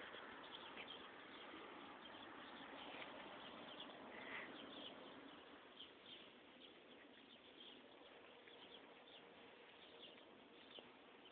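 Near silence: faint outdoor background hiss with scattered faint, short high chirps.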